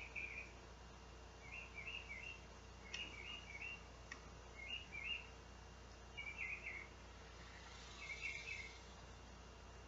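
A songbird singing faint, short phrases of quick rising chirps, repeated about every second and a half.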